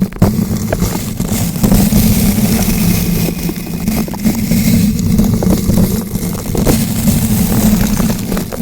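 Bristle brush rubbed and rotated against a bare microphone: dense, continuous scratching and crackling over a low rumble from the mic being handled.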